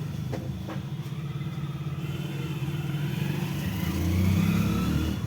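A motor vehicle engine, likely a motorcycle, runs with a steady low rumble that swells louder about four seconds in, as if passing close by.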